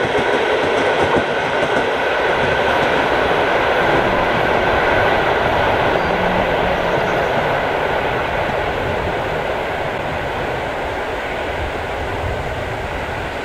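Passenger train rolling along the track: a steady rumble of steel wheels on the rails with the clickety-clack of the wheels, slowly getting quieter toward the end.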